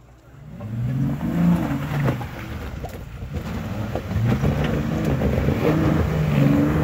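Jeep Cherokee Trailhawk's engine revving up and down under load as it crawls over rocks, starting about half a second in and climbing again from about four seconds.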